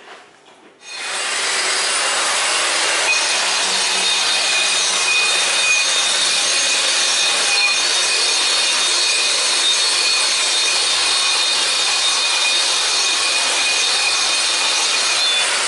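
Concrete floor grinder running steadily, its abrasive head against a bare concrete floor with a dust-extraction vacuum hose attached. It starts about a second in, and a faint high whine joins after about three seconds.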